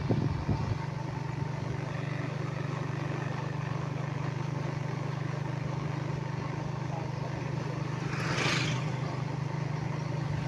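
Engine of a moving road vehicle heard from on board, a steady low hum under road and wind noise while cruising. A short rush swells and fades about eight seconds in.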